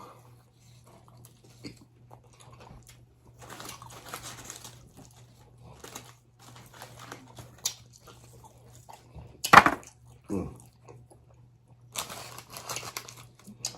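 Chewing and crunching on chicken wings, with a loud, sharp sound about nine and a half seconds in and a low, steady hum underneath.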